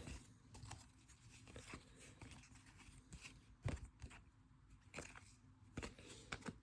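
Near silence with faint, scattered taps and light scrapes of trading cards being handled, the most distinct tap about three and a half seconds in.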